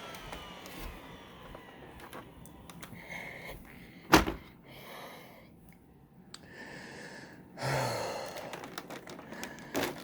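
Eureka TheBoss 4D upright vacuum's motor winding down after being switched off, its whine falling in pitch and fading over the first second or so. A single sharp thump about four seconds in, with heavy breathing and sighs after it.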